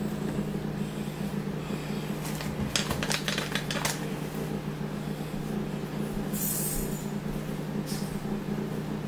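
Kitchen handling noise: a quick run of clicks and clatters as a utensil and a plastic container are handled, about three seconds in, over a steady low appliance hum. A brief hiss and a single click come later.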